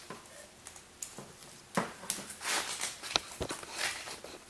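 Scattered light knocks, clicks and brief rustles of objects being handled and set down, with no hammer running.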